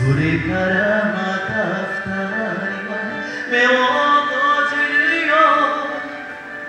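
A man singing a slow, held melodic line into a handheld microphone over instrumental backing music, loudest in the middle of the phrase.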